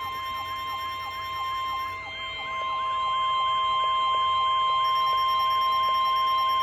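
Weather-radio warning alarm: a steady high tone held under a siren sweeping up and down about three times a second, growing louder a little way in. It sounds an alert ahead of a severe thunderstorm warning.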